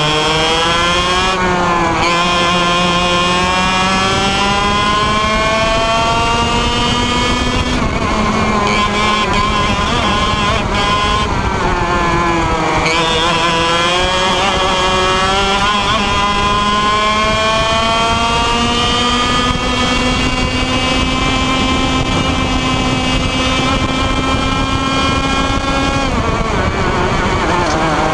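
IAME Leopard 125cc two-stroke kart engine at race pace, heard onboard. Its pitch climbs steadily down each straight and falls sharply when the driver lifts and brakes for a corner, four times, the deepest drop about halfway through.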